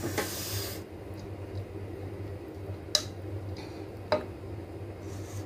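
Cooked basmati rice being spread in a pot with a wooden spoon for the top biryani layer: a brief soft rush of rice at the start, then two light knocks of the spoon against the pot, over a steady low hum.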